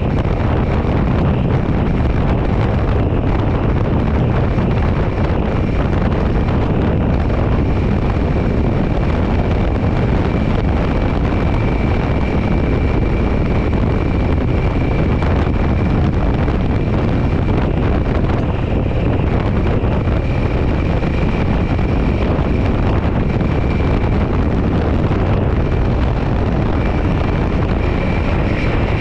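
Wind buffeting the microphone over a motorcycle engine running at steady cruising speed, a continuous rushing noise with no change in pace.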